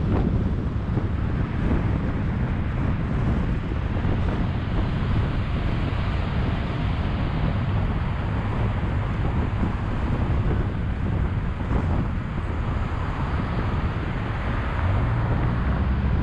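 Steady low rumble of wind buffeting the microphone, mixed with road traffic noise.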